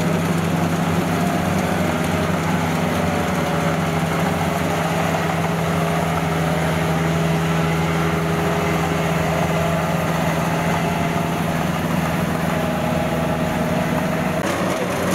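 Kubota DC70 rice combine harvester running steadily as it cuts and threshes rice, its diesel engine giving a constant drone with the rattle of the machinery.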